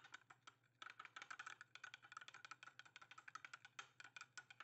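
Metal spoon stirring powdered gelatin into water in a small ceramic bowl, clinking and scraping against the bowl in faint, rapid clicks that stop near the end.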